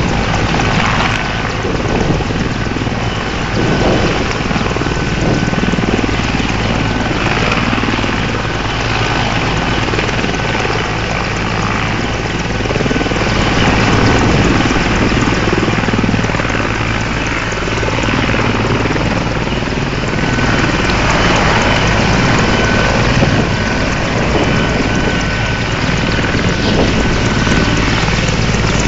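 Mil Mi-24V/35 helicopter running on the ground with its twin turboshaft engines and rotor: a loud, steady noise with a thin, high whine held throughout.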